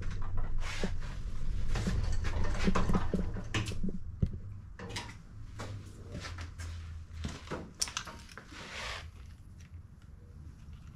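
Handling noise: a string of knocks, clunks and rattles from the air hose and gear being moved about, over a low rumble, with a short hiss about nine seconds in and quieter sound after it.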